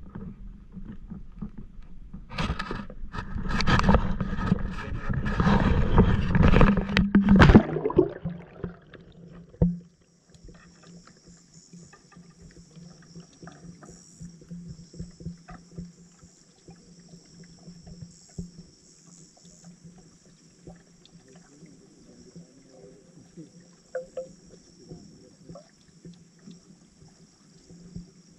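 A camera is handled and plunged into lake water, with loud splashing, knocks and clicks for several seconds. About eight seconds in this gives way to muffled underwater ambience: a steady low hum with faint scattered ticks and clicks.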